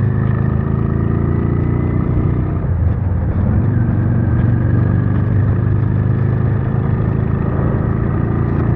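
Honda Steed V-twin motorcycle engine running steadily while riding, its pitch dipping slightly a few seconds in.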